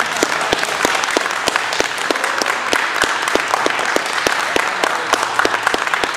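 A small group of people applauding by hand, with one set of sharp claps standing out in a steady beat of about three a second.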